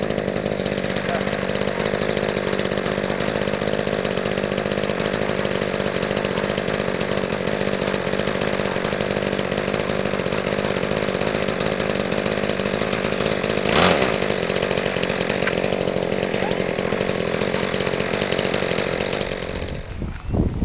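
Small engine of a radio-controlled Piper Cub tow plane running steadily in flight, with one brief knock about two-thirds of the way through. The engine sound drops away near the end.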